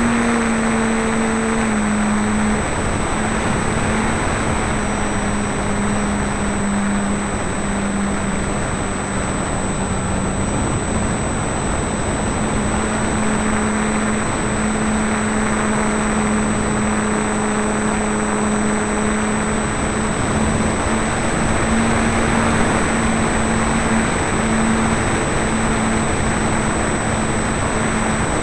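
Radio-controlled model airplane's motor and propeller running steadily, heard from a camera mounted on the plane. The hum shifts slightly in pitch with throttle over a constant rush of wind noise.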